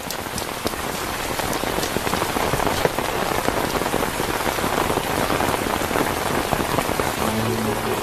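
Heavy rain falling steadily on surfaces, with scattered individual drops ticking close by. Low steady music notes come in near the end.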